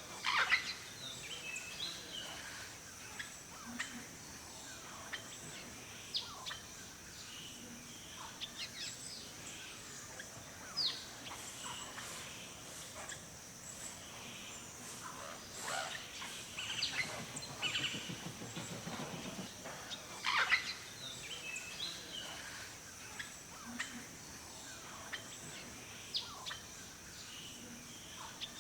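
A chorus of forest birds chirping and calling, with many short calls overlapping and two louder calls, one right at the start and one about two-thirds of the way through. A steady high hiss runs underneath.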